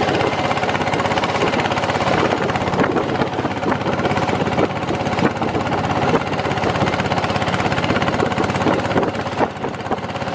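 Long-tail boat's engine running steadily at speed, a loud drone with a fast, even pulse.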